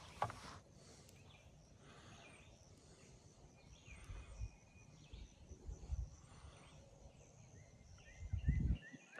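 Quiet outdoor background with small birds chirping now and then: short high notes repeated several times. A few brief low rumbles are also heard, the loudest near the end.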